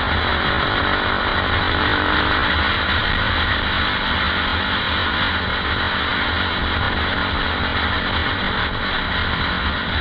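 KTM 520 EXC supermoto's single-cylinder four-stroke engine running steadily at road speed, heard from on the bike with heavy wind rush over the microphone.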